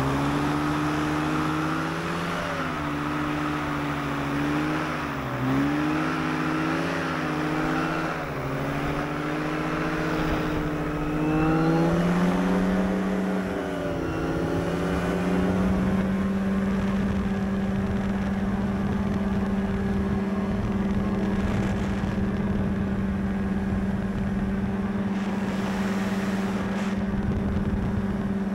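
Paramotor engine and propeller running at high power. Its pitch wavers up and down for about the first fourteen seconds, then rises and holds steady.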